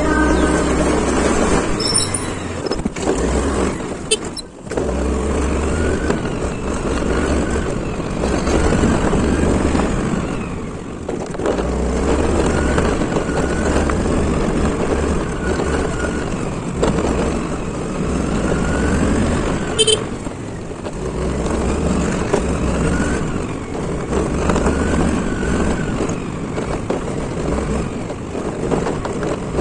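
Riding a motor scooter: wind buffets the microphone in heavy gusts of rumble over steady road and engine noise, dropping out briefly about four and a half seconds in.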